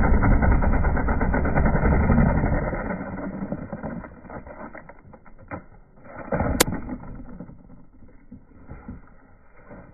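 Emax 660 kV brushless motor of a large RC flying wing running loud and rough, a rattling buzz from a motor shaken badly out of balance after its propeller broke off on launch; it fades away over the first few seconds. About six and a half seconds in, a single sharp crack as the plane hits the ground.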